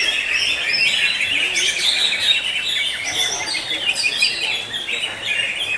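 Cucak hijau (green leafbird) singing a rapid, continuous stream of chirps, trills and whistles, with other birds singing over it at the same time.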